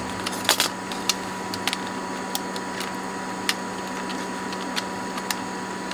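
A few scattered light clicks and taps of plastic as the cover and cassette door of a Sony WM-EX512 Walkman are handled and fitted back on, over a steady faint hum.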